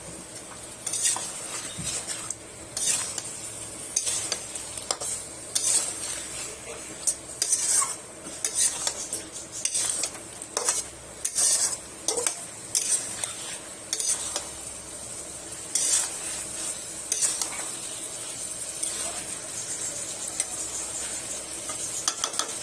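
A spatula stirring a vegetable curry of potatoes, pointed gourd and ridge gourd in spices and a little water, scraping and knocking against the pan about once a second, over a steady sizzle. The strokes thin out in the last third while the sizzle goes on.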